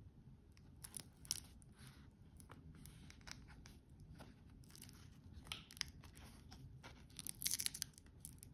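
Faint handling noise of a watch on a cushion: fingers rubbing the nylon strap and cushion, with scattered small clicks and a burst of crinkling near the end as the buckle in its plastic protective film is handled.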